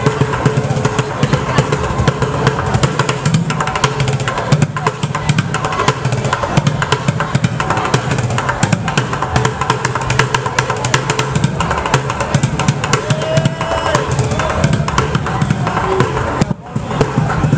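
Loud music with heavy, fast drumming and a pounding bass, with crowd voices mixed in; it drops out briefly near the end.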